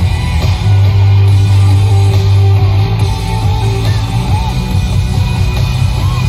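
Loud rock music with heavy electric guitar and a strong, steady bass, played over the ship's show sound system.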